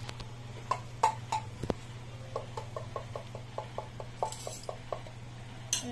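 Light metallic knocks, then a regular run of small clicks, about four or five a second, from a tin can being worked over a stainless-steel mixing bowl.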